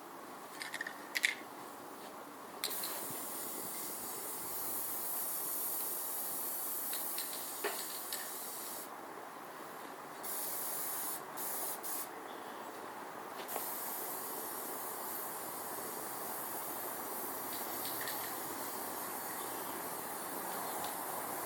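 A steady hissing spray that starts a couple of seconds in and cuts out briefly twice before running on, with a few light clicks early on.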